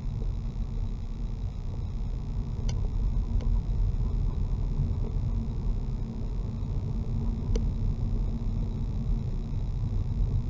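Car cabin noise while driving: a steady low rumble of engine and tyres inside the car, with a few faint clicks.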